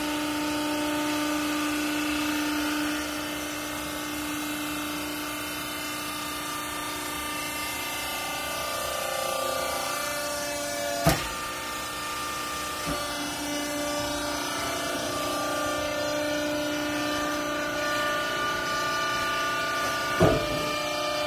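Hydraulic clothes baler's pump unit running with a steady whine that shifts in pitch a few times. Two sharp knocks come through, one about halfway through and one near the end.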